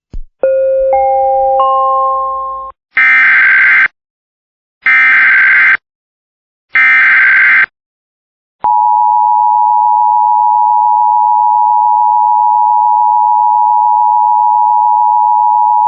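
Emergency Alert System broadcast tones: a three-note rising chime, then three short bursts of the screeching SAME digital header data, then the steady two-tone EAS attention signal held for about eight seconds.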